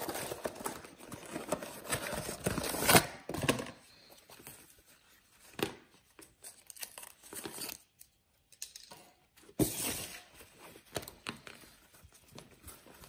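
Cardboard packaging being pulled apart and rustled, loudest in the first four seconds. This gives way to quieter handling of the padded fabric chest harness and its straps: soft rustles and a few small clicks, with a brief burst of rustling near the end.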